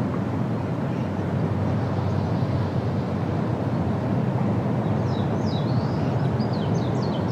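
Outdoor ambience: a steady low rushing noise, with a small bird chirping in a rapid series of short high notes from about five seconds in.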